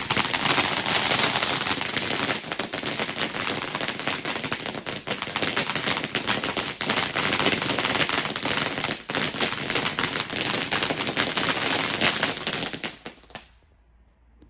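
Garden firework going off with loud, rapid, continuous crackling and popping over a hiss for about thirteen seconds, then stopping abruptly.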